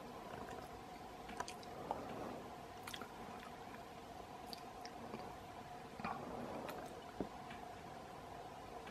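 Faint steady hum with scattered small clicks and rustles, typical of a handheld camera being handled while zoomed in; the airliner itself is not plainly heard.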